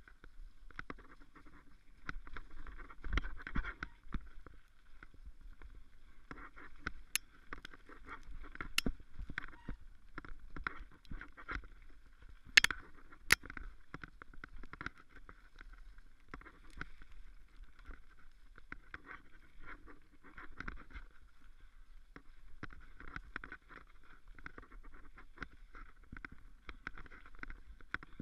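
Mountain bike descending a rough dirt forest trail, heard from the bike: tyre and trail noise with the frame and components rattling and clicking, and two sharp knocks about a second apart near the middle.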